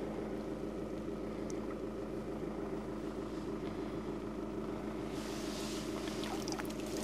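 A steady low hum runs throughout. About five seconds in there is a brief splash of water as a carp is let go from a weigh sling in the lake margin and the sling is drawn out of the water.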